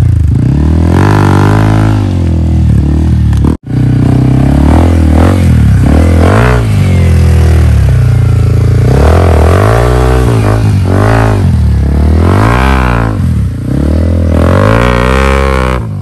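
Dirt bike's engine revving up and down over and over as it is ridden along a rough, narrow trail, the sound cutting out for an instant a few seconds in.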